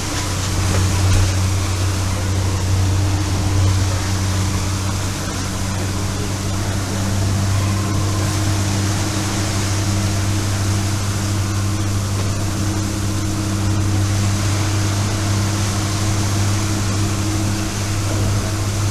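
Boat engine running steadily while trolling, a low even drone, with the rush of water and wind over it.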